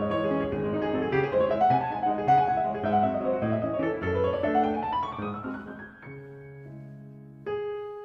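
Solo piano background music: a flowing passage of many notes, with a rising run about four to five seconds in, then quieter, sustained chords.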